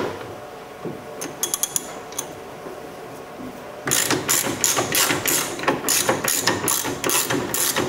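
Ratchet wrench clicking in short repeated strokes, about three a second, as it drives a coarse-thread sheet metal bolt into a door handle's mounting hole. A few light clicks come before the ratcheting starts, about four seconds in.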